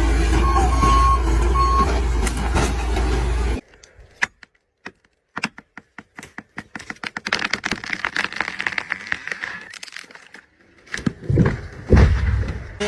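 A heavy machine's engine running with a reversing alarm beeping. The engine sound cuts off abruptly about three and a half seconds in, and a run of sharp clicks and cracks follows. Louder knocks come near the end.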